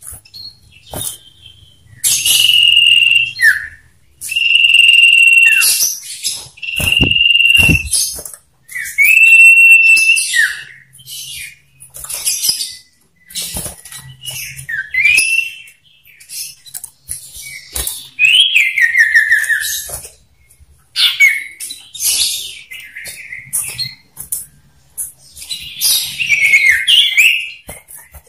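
Male common iora singing: several long, steady, high whistles, each ending in a downward slur, then shorter whistled notes, a rapid falling trill and a burst of chattering. Short scratchy clicks fall between the phrases.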